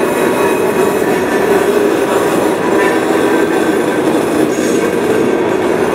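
Freight train of covered hopper cars passing at a grade crossing: a steady, loud run of steel wheels on rail, even throughout.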